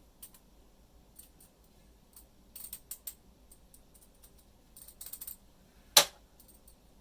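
Light scattered clicks and taps of a screwdriver and padlock being handled, with one sharp, louder click about six seconds in.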